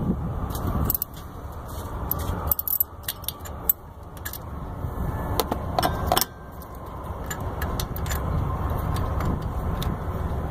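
Metal hand tools, a ratchet and socket extension, clinking and clicking irregularly against each other and the engine parts, over a steady low rumble.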